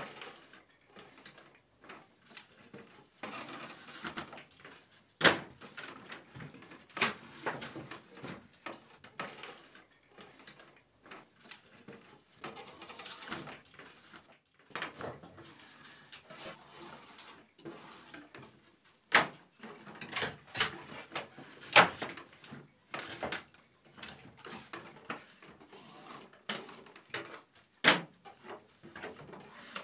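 Draw knife shaving a wooden shingle clamped in a wooden shave horse: irregular scraping strokes, with sharp knocks scattered through, the loudest about five seconds in, twice around twenty seconds, and near the end.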